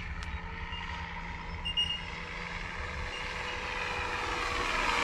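Electric RC F4U Corsair warbird in flight: its motor and propeller whine mix with the onboard engine sound effect unit. The sound grows steadily louder toward the end as the plane approaches.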